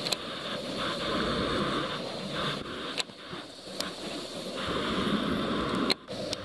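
Steady heavy rain pattering on a rain jacket and the camera, with a few sharp clicks spread through it.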